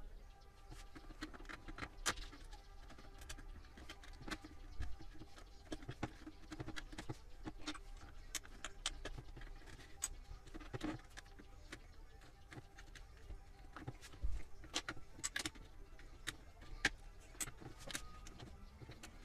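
Plastic casing of a Tefal electronic floor scale being pried open with plastic opening picks and a spudger: irregular sharp clicks and snaps with light scraping and handling of the plastic.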